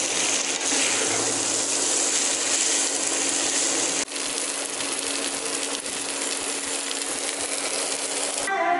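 Flat rice noodles stir-frying in a non-stick pan: a steady sizzling hiss, with a wooden spatula scraping and tossing the noodles against the pan, over a steady low hum. A brief break comes about four seconds in, and a voice or music takes over just before the end.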